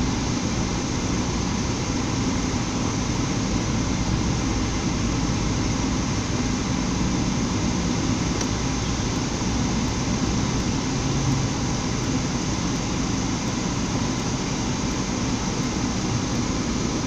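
Steady engine and road noise heard inside the cabin of a moving Changan Karvan Plus van, an even rush with no distinct events.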